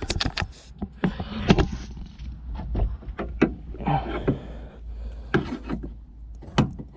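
Irregular clicks and knocks of a replacement tailgate gas strut being handled and pushed onto its ball-stud mount on the body, with a couple of short scraping rustles.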